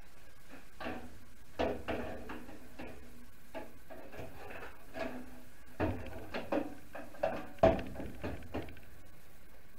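New aluminium radiator being lowered and fitted into a 1966 Ford Mustang's engine bay: scattered knocks, clunks and scrapes as it is handled against the body, with the sharpest knock about three-quarters of the way through.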